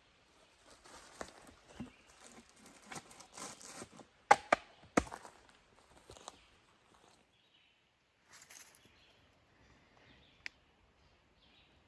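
Irregular rustling and crunching of a hiker moving through brush and leaf litter, with two sharp snaps about four and five seconds in. After that it goes mostly quiet, with a brief rustle and a single click near the end.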